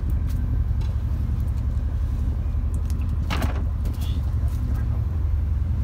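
A boat's engine running steadily, a continuous low rumble, with one short scraping rasp about three and a half seconds in.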